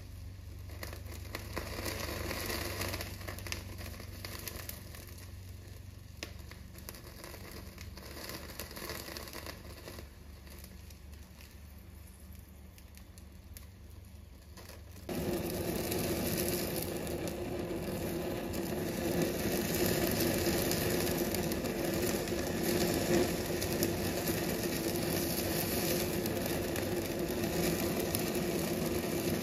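Marinated chicken pieces sizzling and crackling as they are charred in tongs over an open gas burner flame. About halfway through, a louder steady rushing noise with a low hum comes in and carries on.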